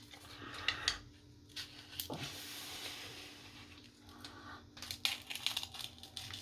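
Scattered small clicks, taps and scrapes of tools and parts on a smartphone as its glued screen is worked loose, with a brief hissing rustle about two seconds in.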